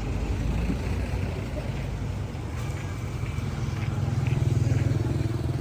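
A motor vehicle's engine running close by, a steady low hum that gets louder about four seconds in.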